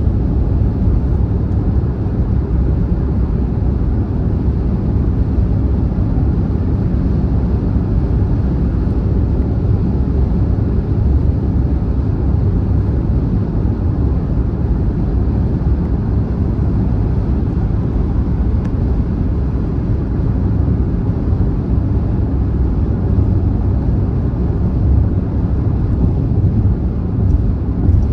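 Car driving at speed on a motorway: a steady low rumble of road and engine noise with no changes.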